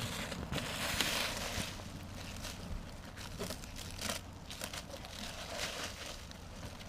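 Crinkling and rustling of roofing material being handled, loudest about a second in, followed by scattered light taps and knocks.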